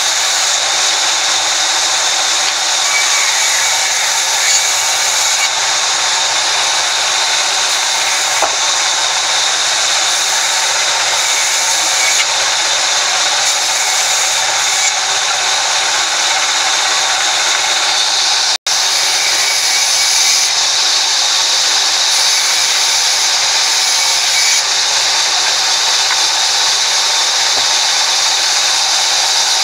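Horizontal band sawmill running, its blade cutting lengthwise through a log with a steady, loud sawing noise. The sound drops out for an instant about two-thirds of the way through.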